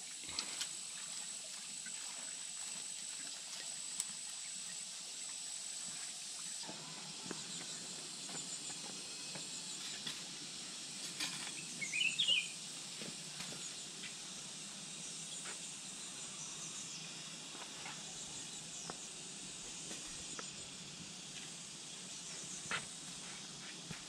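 Outdoor ambience with a steady high insect whine that stops abruptly after about seven seconds, then faint clicks and rustles, with one short high chirp about halfway through.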